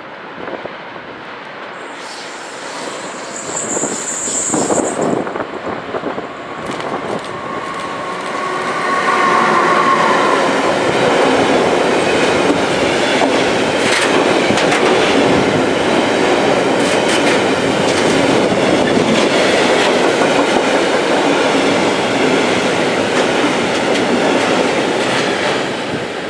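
Freight train passing close by. The noise builds over the first ten seconds, then a long string of covered hopper wagons rolls past loudly and steadily, wheels clattering over rail joints.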